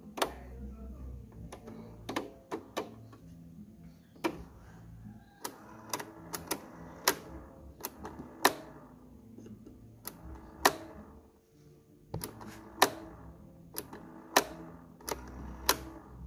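Sharp mechanical clicks of a Toshiba RT-SX26 radio-cassette player's function slide switch and piano-key transport buttons being pushed and switched again and again, about twenty clicks at an irregular pace, over a low steady hum.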